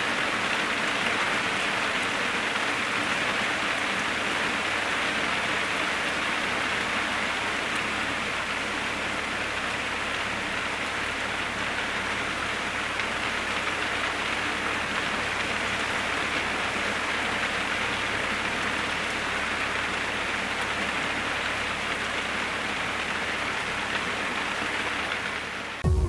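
Steady rain falling, an even hiss that keeps on without a break and cuts off suddenly near the end.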